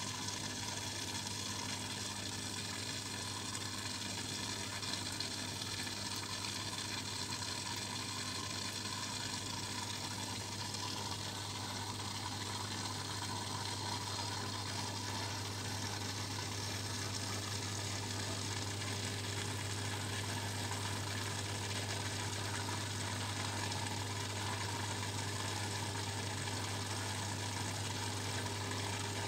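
Aquarium pump running: a steady low hum under a constant hiss of moving, bubbling water.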